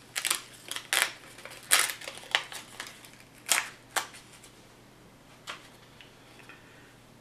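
Paper printout and card handled by hand, a part being taken off and the sheet folded: a run of short, sharp rustles over the first four seconds, and one more about five and a half seconds in.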